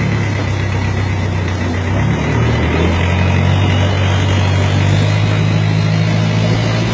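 Long-tail boat's exposed, unmuffled engine running hard at speed, a steady low drone whose note dips briefly about two seconds in and then holds steady.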